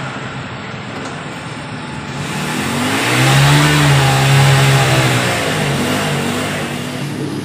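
A motor vehicle passing on the street, its engine note swelling and rising then falling away, loudest around the middle, over steady traffic noise.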